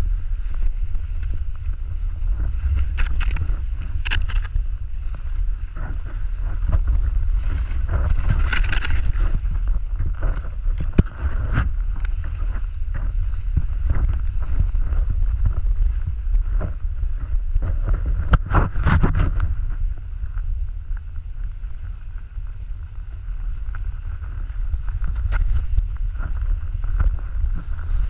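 Wind buffeting the pole-held camera's microphone during a snowboard run, a steady low rumble, with the board sliding and scraping over thin snow; the scraping swells louder about 3, 8 and 18 seconds in.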